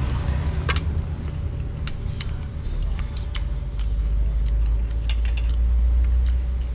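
Spoons and forks clicking and scraping against ceramic plates in a run of short sharp clicks, over a steady low rumble that swells about two-thirds of the way through.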